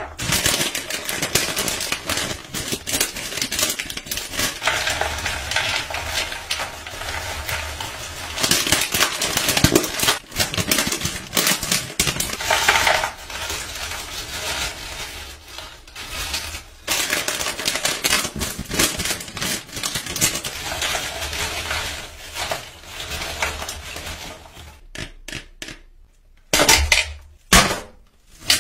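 Crinkly snack bags being handled and crisps and cheese puffs tumbling into a plastic serving tray, a dense crackle with many clicks and clatters. A few sharp, separate noises near the end, as the foil seal of a Pringles tube is torn open.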